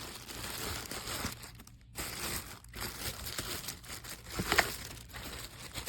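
Plastic packaging crinkling and rustling as the parts of a handheld vacuum are handled, with scattered small clicks and one sharper knock about four and a half seconds in.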